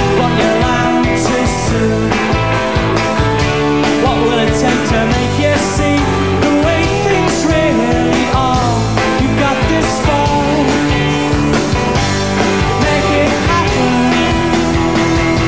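A live Britpop band playing a loud, steady full-band passage: drums keeping a regular beat under bass and guitars, with no clear sung words.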